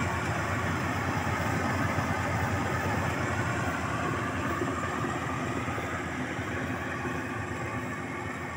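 FMWorld rice combine harvester running steadily while harvesting, its engine and threshing works making a continuous drone that grows a little fainter in the second half as the machine moves away.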